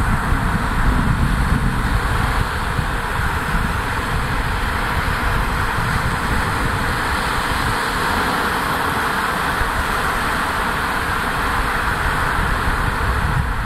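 Wind buffeting the microphone, with uneven low rumbles that are heaviest in the first couple of seconds. Under it runs a steady rushing hiss from the choppy sea.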